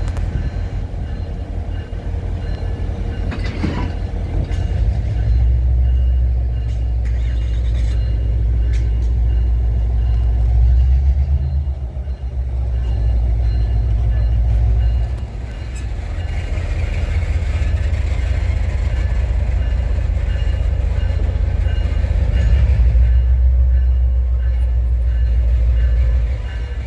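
A passenger train running on the rails, heard as a steady low rumble that swells and eases.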